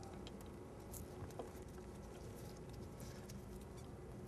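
Faint, scattered light clicks and taps as a motorcycle brake caliper is worked by hand into place over the brake rotor, over a steady background hum.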